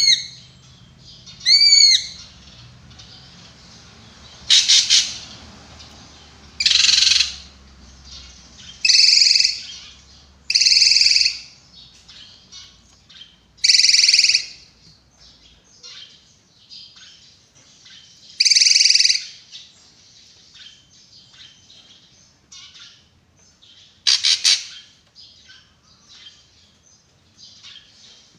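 Drongo (srigunting) calling: two arched whistled notes at the start, then loud harsh rasping calls every few seconds, about seven in all. Faint short chirps run underneath.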